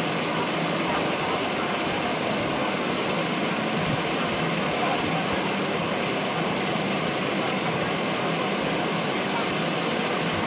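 Steady hubbub of a crowd of spectators, with faint voices and no single loud event.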